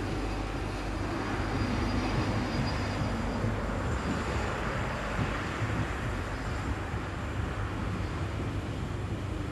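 CFL Class 2000 electric multiple unit pulling away along the track: a steady rumble of wheels on rails and running gear, with faint high whining tones from its traction equipment.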